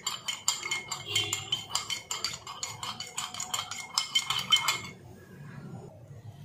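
A spoon clinking rapidly against the inside of a small cup while stirring cornflour into water to keep lumps from forming. The clinking stops about five seconds in.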